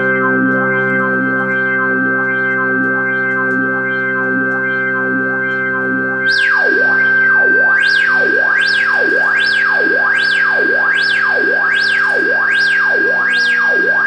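Held synthesizer chord from a Korg Pa50SD keyboard, played over MIDI, pulsing a little more than once a second. About six seconds in it gets louder and a sweep effect sets in, sending the tone up and down about every 0.8 s. The sound then cuts off suddenly.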